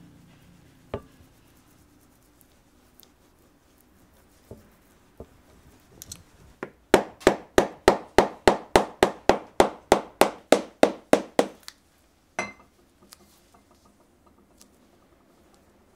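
A shoemaker's hammer striking leather work in a quick run of about twenty even blows, about four a second, with a few scattered taps before it and a single blow after.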